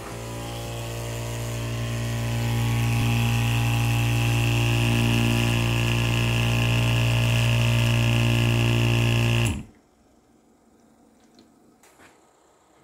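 Electric machine run by a CMOS logic-gate test circuit, switched on with a steady humming buzz at one fixed pitch. It grows louder over the first two seconds, then cuts off suddenly about nine and a half seconds in.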